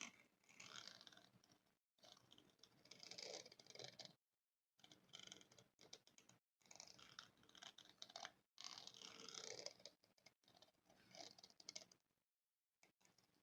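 Spoon scratching on a microphone: quiet, scratchy rasping in about six bursts of one to two seconds, each cut off by a short silence.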